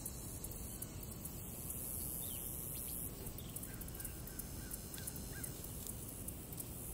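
Steady low outdoor background noise with a few faint, short bird calls in the middle.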